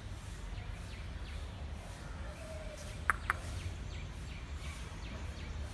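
Outdoor ambience: a steady low rumble with faint scattered bird calls, and two sharp clicks in quick succession about three seconds in.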